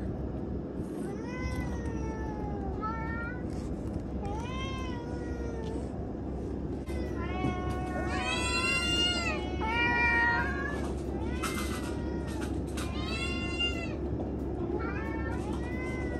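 Several domestic cats meowing again and again, with some calls overlapping; the meows come thickest and loudest around the middle. A steady low hum runs under them.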